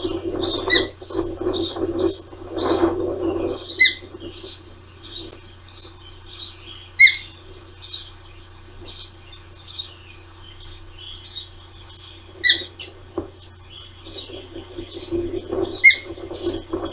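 Ospreys at the nest calling: a steady run of short, high chirps, about three a second, with a few louder, sharper chirps standing out. Bursts of low rumbling noise come in the first few seconds and again near the end.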